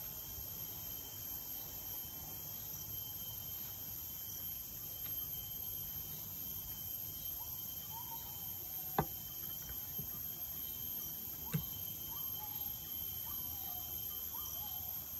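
Steady high insect drone with faint bird-like chirps, broken by two sharp knocks about two and a half seconds apart while mushroom filling is portioned from a plate onto banana leaves on a wooden table.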